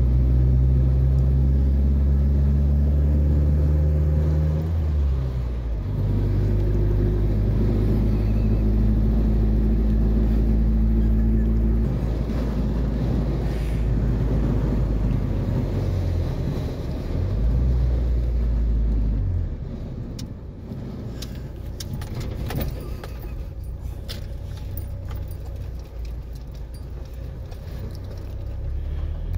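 Ford Ranger's 2.3-litre four-cylinder running through a Thrush glasspack muffler, heard from inside the cab: a steady, deep exhaust drone that breaks off twice as gears are changed. About two-thirds through it drops to a lower, rougher level, and keys jangle on the ignition key ring.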